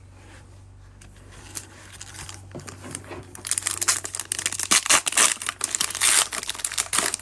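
Foil wrapper of a 2021 Panini Prizm baseball card pack crinkling loudly as it is torn open by hand, starting about three seconds in.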